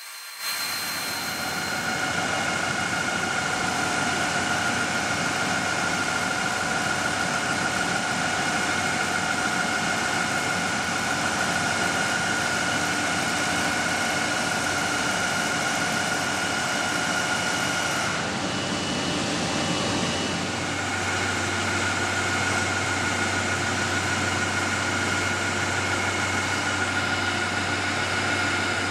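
Heavy machine tools running in a turbine repair shop: a continuous hiss with several steady whining tones. The sound shifts about 18 seconds in, and after that a low hum joins it.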